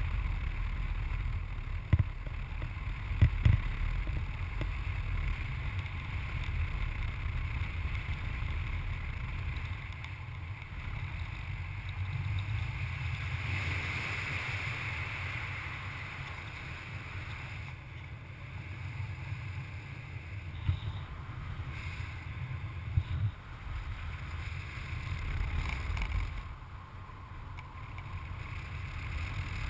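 Wind rushing over an action camera's microphone in paraglider flight: a steady low rumble of buffeting air with a hiss above it, and a few brief knocks.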